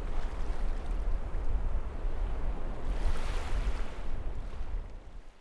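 Sea waves washing on the shore, with wind buffeting the microphone in a low rumble. The wash swells about three seconds in, and the sound fades out near the end.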